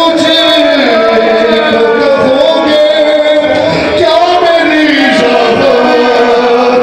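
A man singing a noha, a Shia lament, amplified through a microphone, holding a wavering melodic line without a break.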